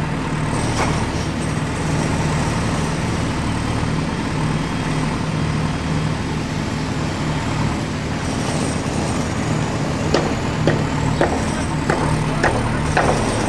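A heavy vehicle's engine running steadily, a low even rumble. From about ten seconds in, a string of sharp clicks as the plastic toy excavator bucket knocks and scrapes in gravel.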